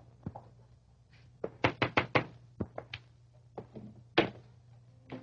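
Knocking on a door: a quick run of raps about a second and a half in, then a few more spaced knocks, the loudest near the end.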